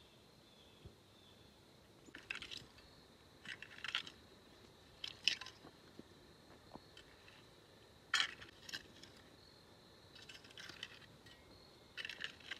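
Hard rake scraping through loose clay soil to cover seed rows: six short gritty scraping and crunching strokes at uneven intervals, the first about two seconds in.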